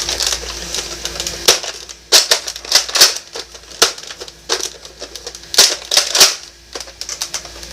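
Hard plastic clicks, snaps and rattles from a Nerf blaster being handled, coming as irregular clusters of sharp clicks.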